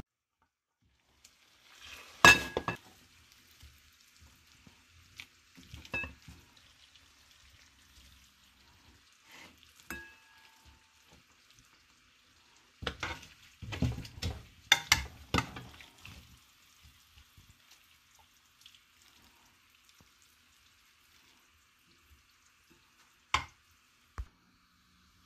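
A metal spoon scraping and clinking against a pan and plate as crumbly semolina halwa is scooped and served, in a few separate bouts: a sharp clink about two seconds in, a run of scrapes and clinks in the middle, and one last clink near the end.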